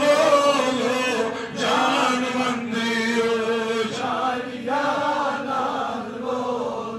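A man chanting a Kashmiri naat, a melodic devotional praise of the Prophet, in long sung phrases over a steady held tone.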